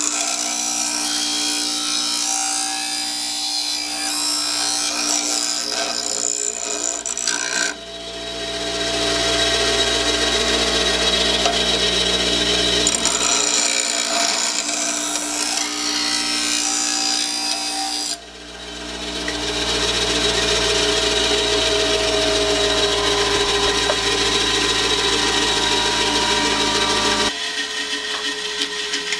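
Bench grinder sharpening a steel hedge shear blade: a steady motor hum under the loud hiss and rasp of the steel against the grinding wheel as the dull edge is ground. The sound drops out abruptly twice, around 8 and 18 seconds in, and builds back up, and the grinding stops shortly before the end.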